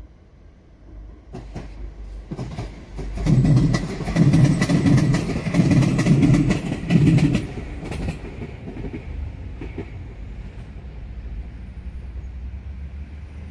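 Madrid Metro 6000-series electric train passing close by, its wheels clacking in a rapid run over the rails as the cars go past, then fading to a low rumble as it draws away.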